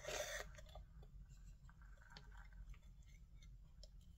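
Near silence with faint handling sounds: a short rustle at the start, then a few soft ticks and taps as a small metal palette knife is picked up and laid against a paint-covered tile.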